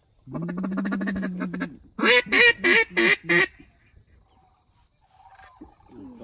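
Hand-blown duck call, very close: one long raspy note lasting about a second and a half, then, after a short break, five loud quacks in quick succession.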